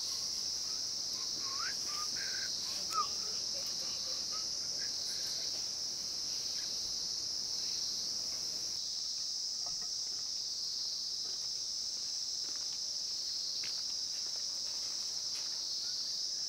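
A steady, high-pitched insect chorus with a few short bird chirps in the first few seconds.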